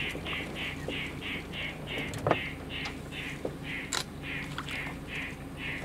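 A rasping animal call repeated steadily, about three times a second, over a low steady hum, with a few soft knocks.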